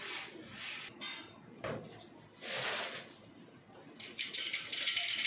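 Cookware and utensils being handled on a kitchen counter: a few short rustling, clattering rushes, with a busier run of quick clatters in the last second or so.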